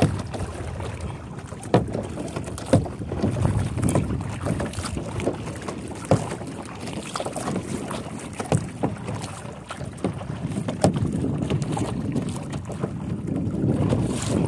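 Double-bladed kayak paddle strokes, the blades dipping and splashing on alternating sides, with a sharp stroke sound every second or two. Steady wind rumble on the microphone runs underneath.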